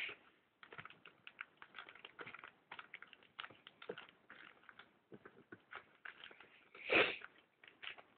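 Plastic packaging crinkling and crackling in bursts of small irregular ticks as a Blu-ray steelbook is unwrapped by hand, with one louder rustle about seven seconds in.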